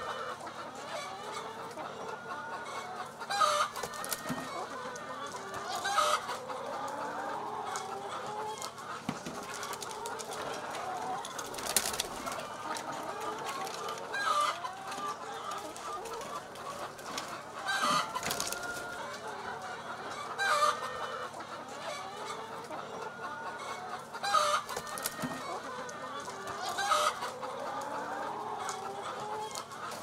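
A large flock of brown laying hens clucking and calling over one another, with a louder call rising above the flock every two or three seconds.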